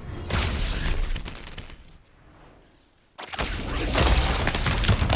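Film sound effects of electrical blasts: a loud crackling blast about a third of a second in that fades away over a second and a half, then after a brief lull a second sudden, loud crackling blast about three seconds in that keeps going.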